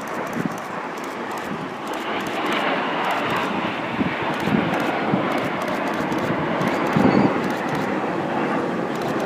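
Jet engines of a formation of display jets flying past: a broad rushing roar that builds over the first few seconds and then holds loud. A few brief low bumps sit in it, the strongest about seven seconds in.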